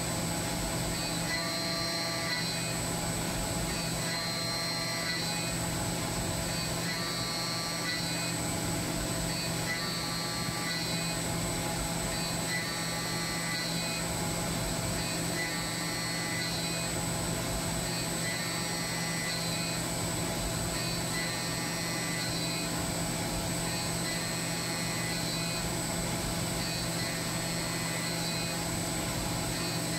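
SYIL X7 CNC mill's end mill cutting mild steel, a pitched cutting tone coming and going about every two seconds as the tool makes its passes, over a steady machine hum.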